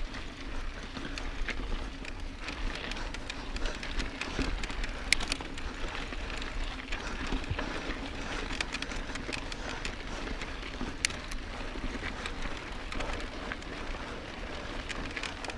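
Mountain bike rolling over a rocky dirt trail: a steady crunch of tyres on grit with frequent small clicks and rattles from stones and the bike.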